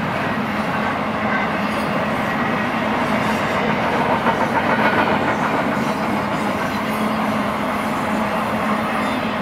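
Double-stack intermodal freight train's loaded container well cars rolling past: a steady rumble and clatter of steel wheels on the rails, swelling slightly about halfway through.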